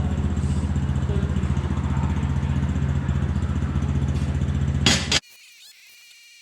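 Small gasoline engine idling steadily. A brief sharp noise comes about five seconds in, and then the sound cuts off abruptly.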